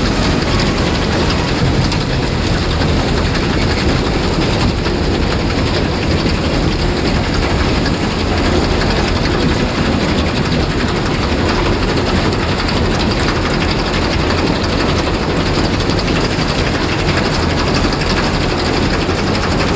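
Potato harvesting or handling machinery running steadily: a dense mechanical rattle over a low engine drone.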